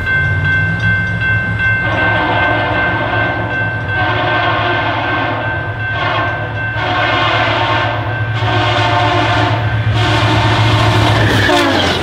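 Passenger train's locomotive air horn sounding a chord in several long blasts over the low hum of the diesel engine as the train approaches. The horn stops shortly before the end, and the clatter of the cars' wheels passing takes over.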